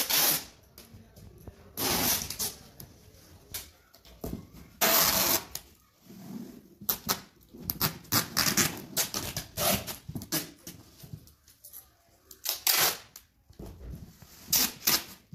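Brown packing tape pulled off its roll in several noisy strips, the longest about five seconds in, with rustling and light knocks as it is pressed onto cardboard cartons.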